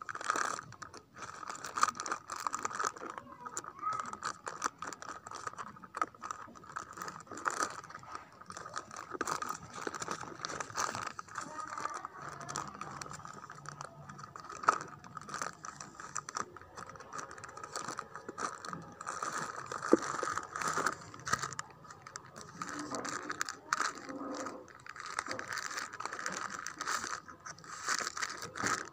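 Someone rummaging by hand through a stock of herbal-medicine packets: a run of small rattles, scrapes and clicks as items are moved and checked, with a steady high tone underneath.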